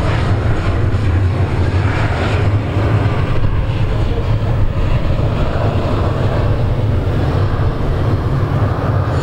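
Twin Garrett TFE731 turbofan engines of a Bombardier Learjet 31A running at taxi power as the jet rolls past: a steady, deep engine noise.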